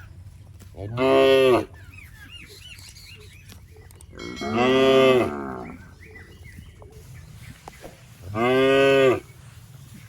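Cattle mooing three times, each moo a low, drawn call of under a second, about three to four seconds apart.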